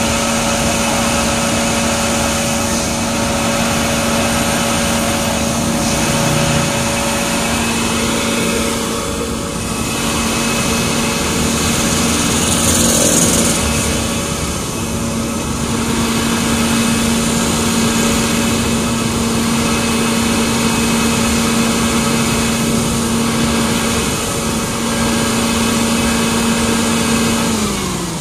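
Concrete mixer truck's diesel engine running at steady raised revs with an even drone. There is a brief hiss about halfway through. The pitch drops just before the end as the revs come down.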